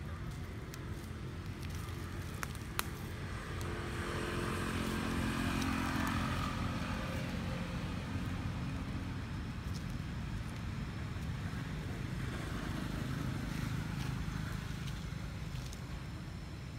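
A motor vehicle's engine passes, swelling and fading about four to seven seconds in, over a steady low rumble. There is one sharp click a few seconds in.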